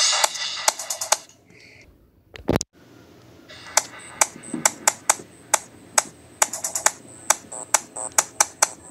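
Music stops about a second in; after a single thud, a run of sharp, irregularly spaced clicks and taps follows.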